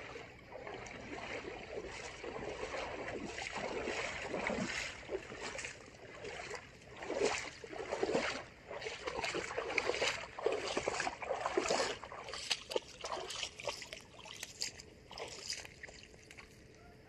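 Feet splashing and sloshing through shallow water as two people wade, in uneven steps, with water trickling; the splashes thin out near the end.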